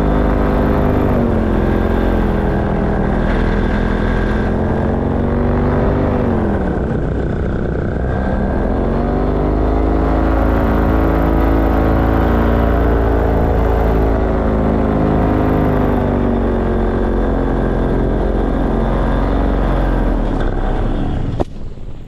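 Light aircraft engine running, its pitch falling and rising as the throttle is eased back and opened again, over a heavy low rumble. The pitch drops deeply for a couple of seconds, comes back up and holds steady, then falls and cuts off suddenly near the end.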